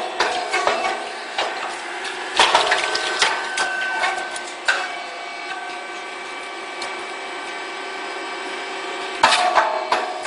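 Puffed grain cake machine running: a steady motor hum under clusters of sharp clacks and pops as it presses and releases cakes, near the start, from about two and a half to five seconds in, and again near the end.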